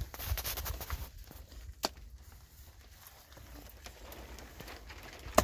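Footsteps crunching on stony ground with scattered clicks, two of them sharp, over a low rumble of wind on the microphone.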